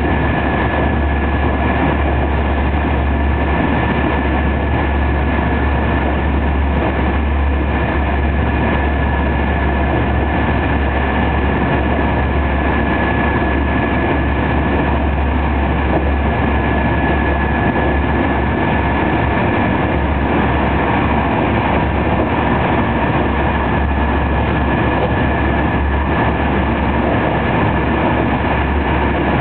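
Inside a TER 200 passenger coach running at speed: a steady, loud rumble of wheels on rail with a thin high whine held throughout.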